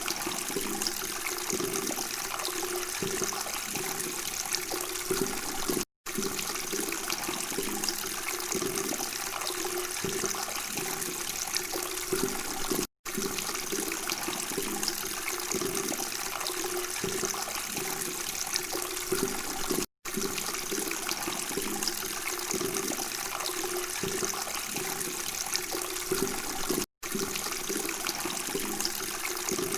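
Babbling flowing water, a steady rushing trickle. It cuts out for an instant four times, about every seven seconds, where the recording loops.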